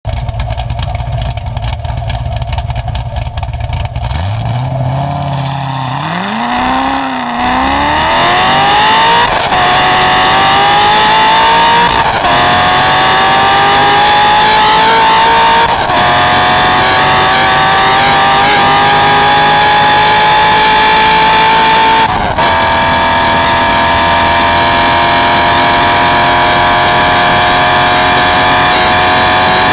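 2006 Corvette C6 Z06's 7.0-litre LS7 V8, with an aftermarket cam, ported heads, headers and ZR1 mufflers, heard from inside the cabin as the car accelerates. It rumbles at low revs for the first few seconds and revs up into the launch about six seconds in. Then it climbs in pitch through four upshifts, each a brief break and drop in pitch.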